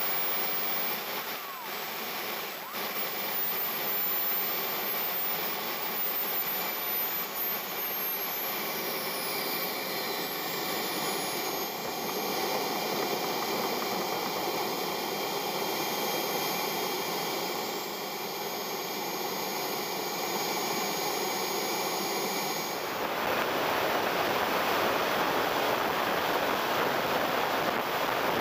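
JetCat 160SE turbine of an RC A-4 Skyhawk jet, heard from an onboard camera: a steady high whine over rushing air, its pitch falling over several seconds as the jet slows through landing. About 23 s in, the sound changes abruptly to a louder, denser rush of air and turbine in flight.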